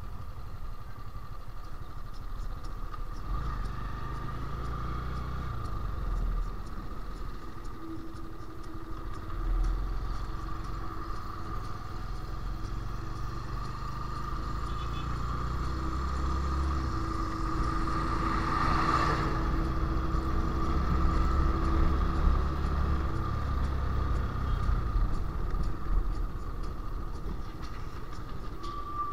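Motorcycle engine running on the move: a low rumble with a steady higher whine over it, growing a little louder past the middle.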